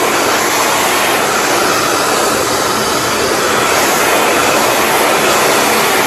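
Handheld hair dryer running steadily, blowing through a section of hair held on a round brush.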